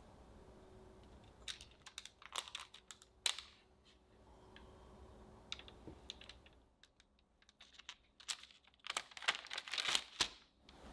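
A metal cookie stamp pressed again and again into rolled-out cookie dough on parchment paper: three bunches of small taps, clicks and paper crinkles, the loudest bunch near the end.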